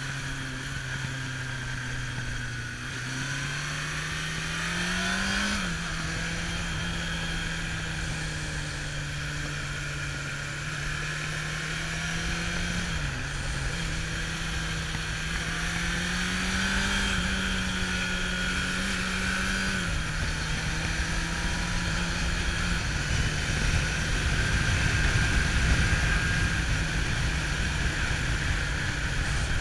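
Kawasaki Zephyr 750's air-cooled inline-four engine running on the road, its note climbing over a few seconds and then dropping abruptly several times as the revs change. Steady wind rushing over the microphone, louder near the end.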